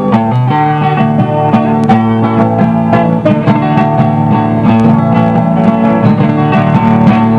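Instrumental break in a música caipira song: plucked string instruments playing the melody over a steady bass line, with no singing.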